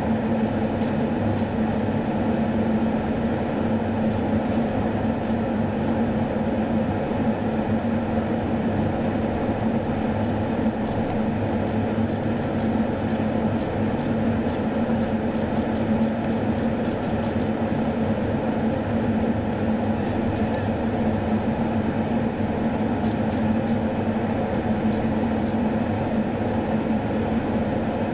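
Steady drone of engine and airflow noise inside a KC-135 tanker's boom-operator compartment in level flight, with a constant low hum running under a rushing noise.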